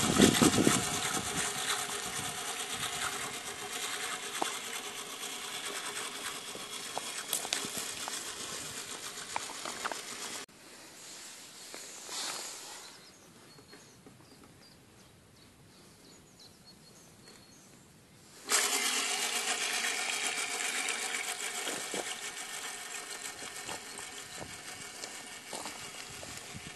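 The clockwork spring motor of a 1960s West German tin toy speedboat runs with a steady mechanical whirr and buzz, fading slowly. About a third of the way in the whirr drops suddenly to a faint, quiet stretch. About two-thirds in it cuts back in at full strength and fades again.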